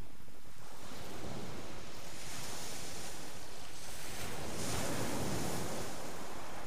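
Waves breaking on a shingle beach, a steady rush of surf that swells twice.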